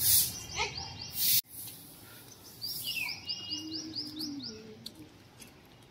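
A few swishes of a grass broom sweeping hedge clippings across brick paving, cut off abruptly about a second and a half in. Then a bird gives a quick run of about ten short, high chirps.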